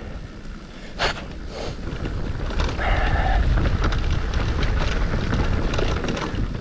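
Wind buffeting the camera microphone, over tyres rolling on a leaf-covered dirt trail, as an electric mountain bike rides along; the rumble swells about two and a half seconds in. A sharp clack about a second in and a brief whine near three seconds.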